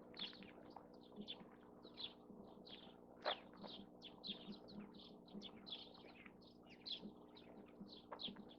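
Many small birds chirping in quick, overlapping short calls that slide downward, several a second, with one sharp click about three seconds in.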